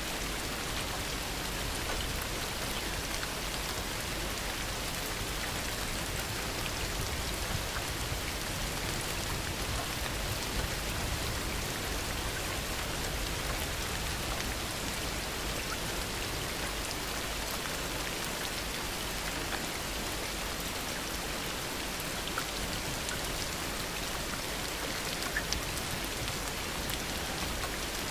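Steady heavy rain falling, a constant hiss with scattered individual drop ticks.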